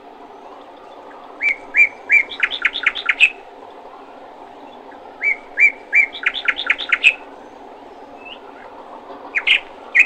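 Small songbird singing: repeated phrases of two chirps followed by a quick run of notes, about every four seconds, with a third phrase starting near the end. Steady low background noise lies underneath.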